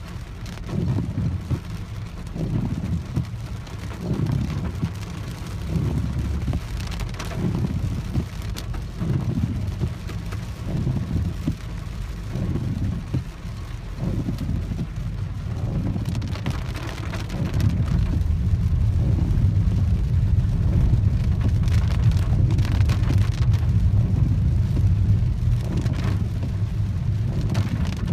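Heavy rain on a moving car, heard from inside the cabin of a Peugeot 408, with a steady rumble of tyres on the wet road and the engine underneath. The low rumble swells and fades every second or so and grows louder about two-thirds of the way through.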